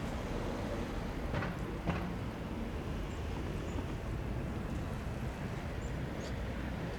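Low, steady rumble of an ATR 72-600's twin turboprops, heard from a distance as the aircraft climbs away after takeoff, with two light clicks about one and a half and two seconds in.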